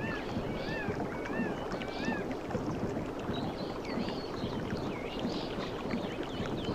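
Sea waves washing steadily on a beach, with birds giving short repeated chirping calls, several a second in the first couple of seconds and higher-pitched ones later.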